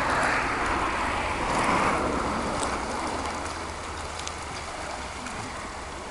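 Kayak paddles dipping and splashing in calm river water: a watery hiss that is loudest for the first two seconds and then eases as the kayaks move off, with a few faint light clicks.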